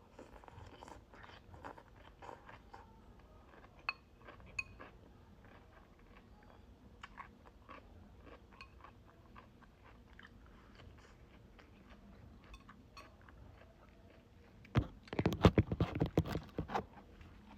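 Close-up chewing and crunching of cucumber salad: a run of small crisp clicks, then a much louder, dense burst of crunches and knocks near the end.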